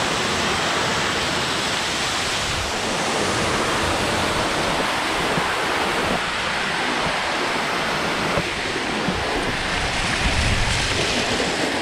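Waterfall rushing and splashing close by: a loud, steady roar of falling water.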